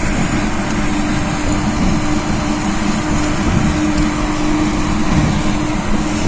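Steady running noise of a moving road vehicle heard from on board: rushing wind and road noise under a steady low engine hum.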